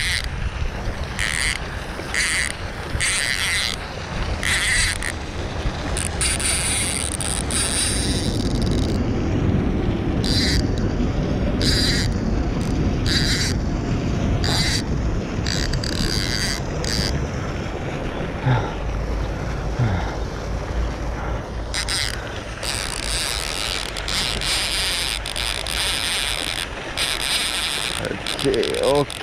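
Baitcasting reel clicking and whirring in short bursts, about one a second with a pause in the middle, as a hooked Chao Phraya catfish is played. Wind buffets the microphone underneath.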